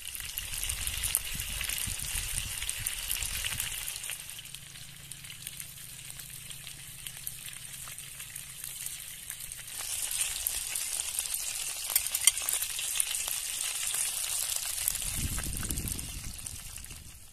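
Chicken wings frying in oil in a wok, sizzling with fine crackles as they are turned with a fork. The sizzle grows louder about ten seconds in, with a few sharp clicks.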